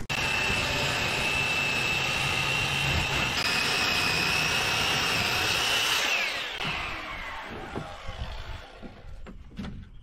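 Circular saw ripping a reclaimed timber lengthwise, motor running steadily with a high whine, then spinning down with a falling whine about six seconds in. A few knocks follow near the end.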